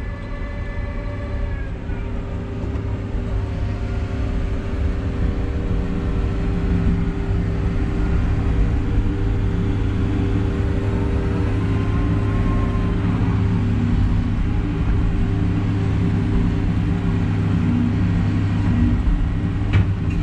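Feller buncher's diesel engine and hydraulics running, heard from inside the cab as a steady drone that grows louder over the first several seconds. A whine rises and holds briefly at the start.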